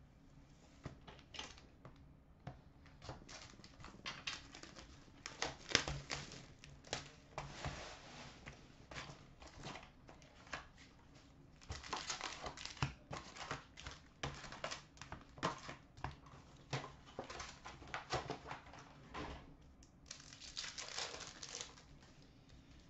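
A cardboard hobby box of hockey trading cards being opened and its foil card packs handled and torn open: irregular crinkling, rustling and sharp paper ticks, busiest through the middle, with a denser crinkling burst near the end as a pack is opened.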